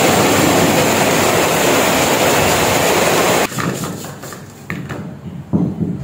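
Heavy rain pouring down and dripping off a roof edge, a loud, even hiss that cuts off about three and a half seconds in. Then a few short clinks and knocks as fried cassava sticks are tipped from a perforated metal strainer onto a plate.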